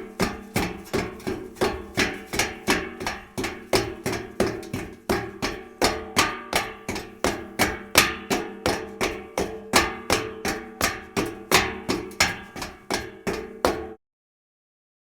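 Footsteps on a steel staircase: a steady run of about three steps a second, each footfall ringing on the metal treads. It stops abruptly about a second before the end.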